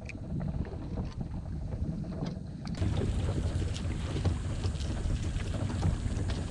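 Wind buffeting the microphone over water lapping at a small boat, a steady low rumble with scattered faint ticks. It gets louder about three seconds in.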